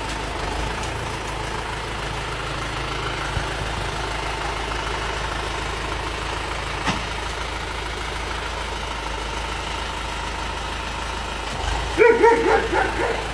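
Tractor engine running steadily under way in third gear. About a second before the end, dogs bark several times.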